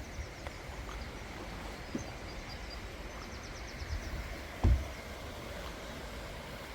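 Steady low rumble of a car driving, heard from inside the cabin, with one dull thump about four and a half seconds in.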